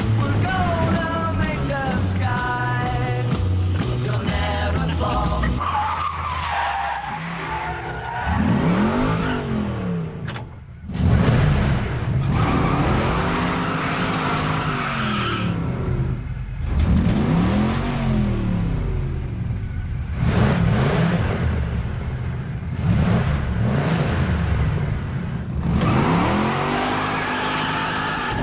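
A rock song with singing plays for the first few seconds, then gives way to a car engine surging up and down in pitch again and again, with tyres screeching: film sound effects for a car speeding into a crash.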